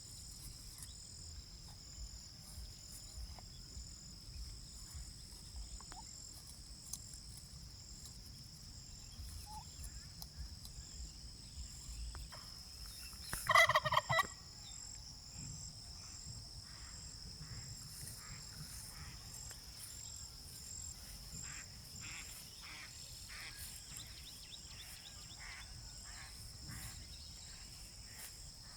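Domestic turkey tom gobbling once, a short rapid burst about halfway through, over a steady high chirring of crickets.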